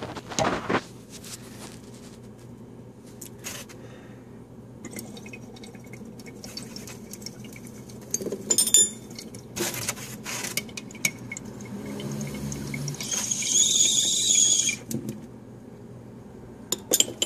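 Glass dab rig in use: scattered clicks and taps of glass on glass, then water bubbling through the rig for about two seconds near the end as the dab is inhaled.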